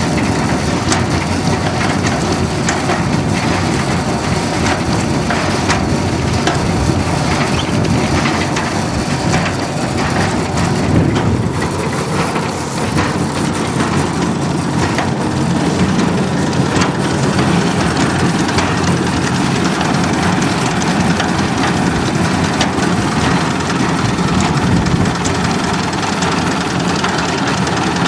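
Massey Ferguson 35 tractor running and driving a Bamford Wuffler hay turner through its PTO shaft. It makes a steady loud mechanical din with a low rumble and constant rattling ticks from the machinery and hay.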